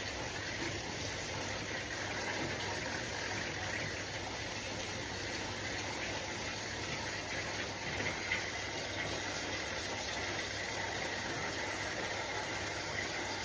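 High-pressure washer running steadily, spraying water with a continuous hiss over a low motor hum, as used to wash out an air conditioner.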